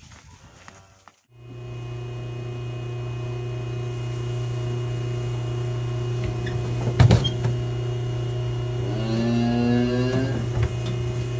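A steady, loud machine hum that starts abruptly about a second in, with a sharp knock about 7 seconds in and a brief pitched sound about 9 to 10 seconds in.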